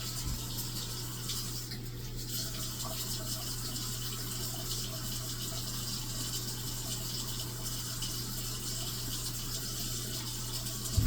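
Kitchen tap running in a steady stream, with a low steady hum under it. A short knock near the end.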